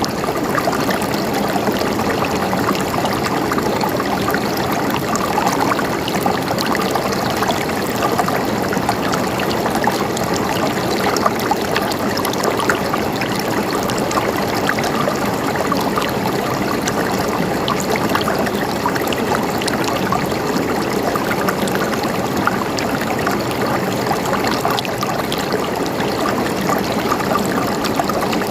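River water flowing and splashing steadily over rocks, an even rushing with fine bubbling detail.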